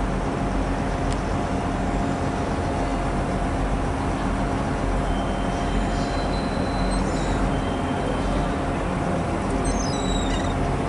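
High Speed Train (InterCity 125) approaching slowly over curved pointwork, its class 43 diesel power car giving a steady low rumble and hum. Short high-pitched squeals come in the second half, typical of wheel flanges on the tight curves of the points.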